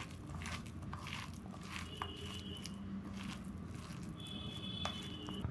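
Hands mixing a coarse ground chana dal masala vada dough with chopped onion: a steady run of small, moist crunching and squishing clicks.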